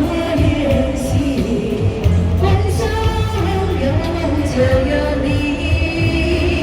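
Chinese pop song with a singing voice over a steady bass and beat, in a homemade remix.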